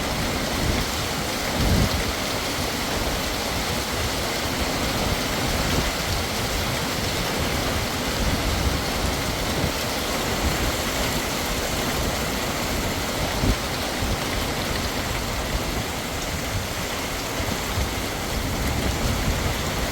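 Heavy monsoon rain pouring steadily, a dense even hiss, with an uneven low rumble underneath.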